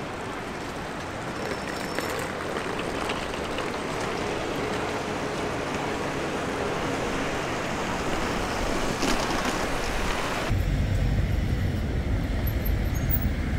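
Steady city street traffic noise from passing cars and taxis. About ten seconds in it changes abruptly to a heavier low rumble.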